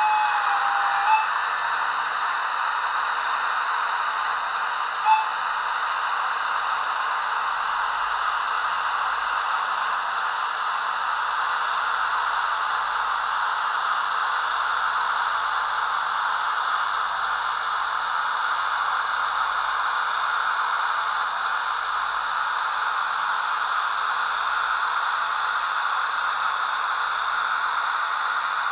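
Märklin H0 model of a DB class 150 electric locomotive rolling slowly past, its sound decoder playing a steady hissing electric-locomotive running sound through the model's small speaker. A brief sharp sound stands out about five seconds in.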